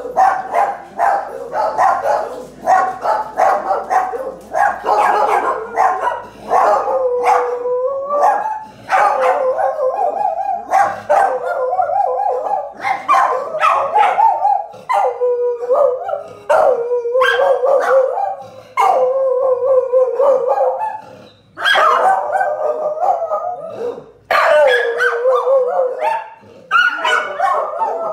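Two dogs howling together at a street sweeper, long wavering howls that sink and rise in pitch, broken up by short barks.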